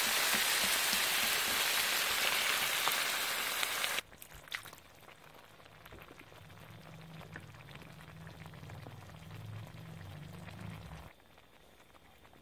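Chickpeas and masala frying in oil in a pot, a loud steady sizzle that cuts off abruptly about four seconds in. After that only a faint low hum and light clicks are left as the chickpeas sit in the water just added.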